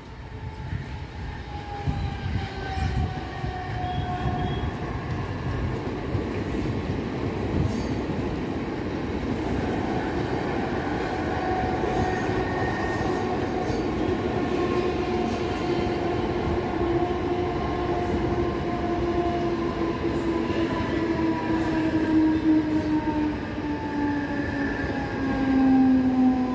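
Mumbai suburban electric multiple-unit (EMU) local train running past: a steady rumble of wheels on the rails, with a whine from its electric traction motors that slowly falls in pitch as the coaches go by.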